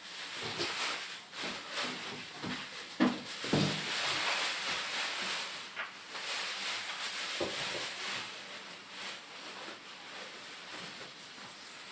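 Polystyrene foam and cardboard packing being handled and pulled off during an unboxing: rustling and scraping, with sharp knocks about three seconds in, again half a second later, and near seven and a half seconds. The rustling fades toward the end.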